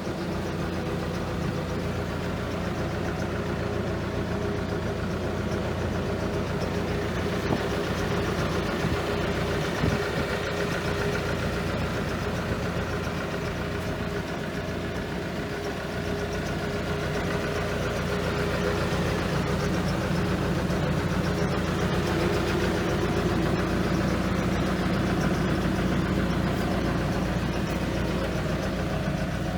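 Diesel engine of a 2010 Hitachi ZX280LC-3 tracked excavator running steadily, a little louder from about two-thirds of the way through, with a couple of faint knocks.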